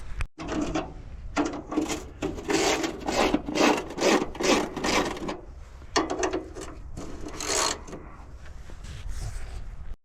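Repeated rasping, scraping strokes of hand tools working on the air compressor's metal as screws are worked loose, about two strokes a second, in runs that stop and start.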